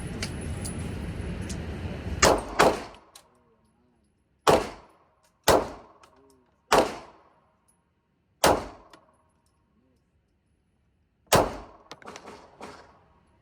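Seven shots from a Glock 43x 9mm pistol fired at an uneven, unhurried pace: the first two close together, the rest one to three seconds apart, each a sharp crack with a brief ring-out. A few fainter knocks follow the last shot, after a steady rushing noise in the first two seconds.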